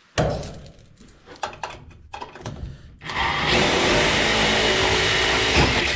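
Electric drill running steadily for about three seconds, boring a pilot hole in the furnace housing for a screw, after a knock and a few handling clicks.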